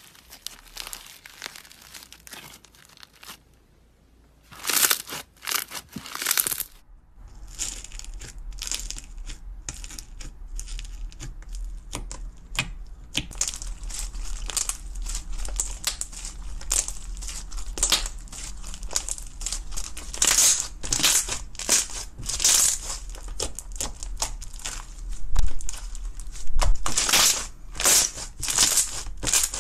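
Slime being squeezed and stretched by hand, making dense crackling and popping. There is a brief lull about four seconds in, followed by a few sharper snaps. First it is a clear pink slime with small beads, then a thick green slime.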